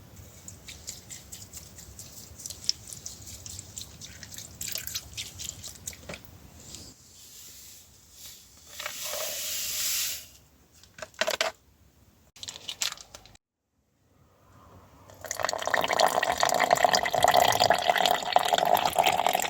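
Scattered light clicks and knocks of things being handled. After a sudden break, water pours steadily into a container, such as a kettle or pan being filled.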